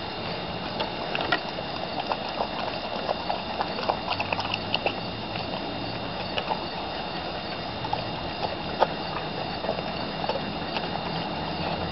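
Dog licking and chewing at pieces of raw meat, with wet smacking and scattered small irregular clicks.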